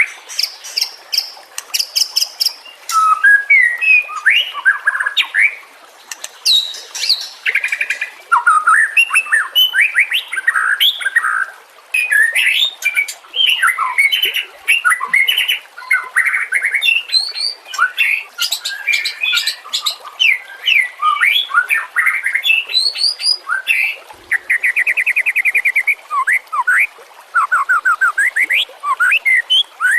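White-rumped shama singing a long, varied song of quick whistled phrases, chirps and fast trills, changing pitch from phrase to phrase with only brief pauses.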